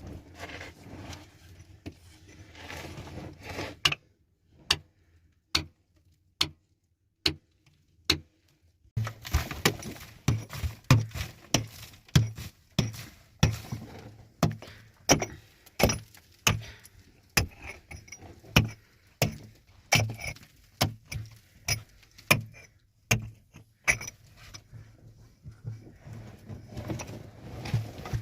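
Repeated blows of a hand tool. First come clattering and scraping, then single sharp strikes spaced apart. About a third of the way in they settle into a steady run of one or two strikes a second, each with a dull thud underneath, before scraping again near the end.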